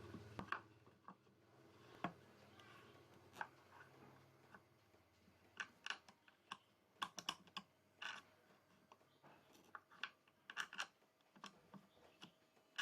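Scattered light clicks and taps, irregular and quiet, thickest in the middle of the stretch, while a low hum dies away over the first few seconds.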